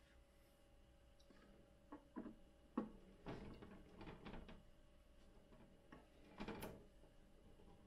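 Faint handling noise of a clear plastic PTFE filament tube being pushed through a fitting on a 3D printer's enclosure panel: a few light clicks a couple of seconds in, then short scraping rustles, over a low steady hum.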